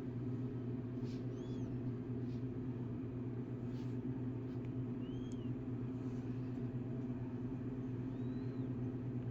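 A steady low hum, with a few short high chirps over it and a couple of faint clicks.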